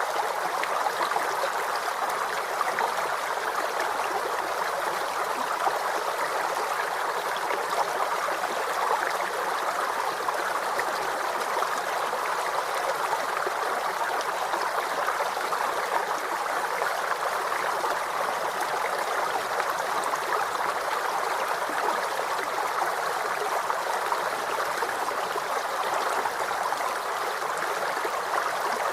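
Waterfall: a steady, even rush of falling water, with little deep rumble.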